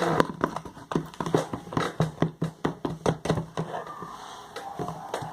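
Glue slime being stirred as the boric acid activator is worked in: a quick, irregular run of sticky clicks and squelches that thins out near the end.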